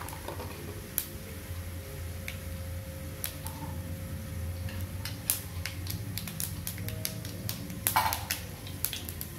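Mustard seeds popping in hot oil in a pan with urad dal, over a steady low hum. Scattered sharp pops grow more frequent about halfway through, with a quick burst near the end. The spluttering is the sign that the oil is hot enough for the tempering.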